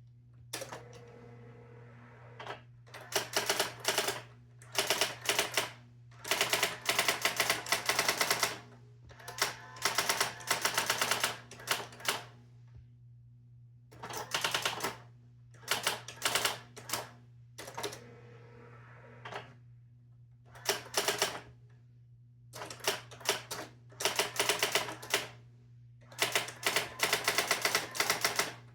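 A Brother GX-6750 electronic typewriter typing in quick bursts of rapid key strikes, a word or so at a time, with short pauses between bursts. A steady low hum runs underneath.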